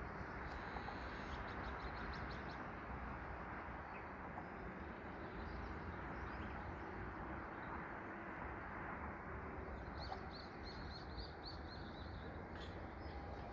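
Small birds chirping: a quick run of short high notes about a second and a half in and another longer run about ten seconds in, over a steady background hum of outdoor ambience.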